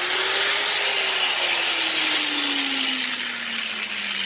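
Hand-held grinder grinding the edge of a metal tank flange to clean it before welding: a steady grinding hiss over the motor's tone, which slowly drops in pitch as the wheel bears on the metal.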